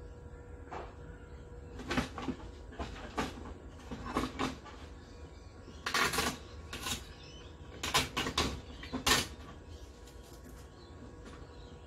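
Hard plastic clicks, knocks and scrapes as the plastic speaker-grille panel of a flat-screen TV's back housing is pried loose and lifted off. The knocks come in an irregular string, loudest about six seconds in and again around eight to nine seconds.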